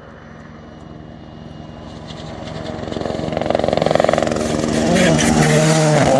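Rally car approaching at speed and passing close by, its engine note growing steadily louder, with the revs rising and falling as it goes by near the end.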